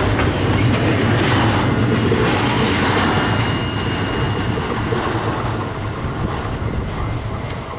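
Double-stack container train rolling past, the wheels of its loaded well cars rumbling and rattling on the rails, with a faint thin wheel squeal in the middle.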